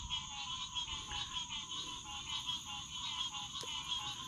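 Night chorus of frogs calling in rapid repeated pulses over a steady, high insect drone.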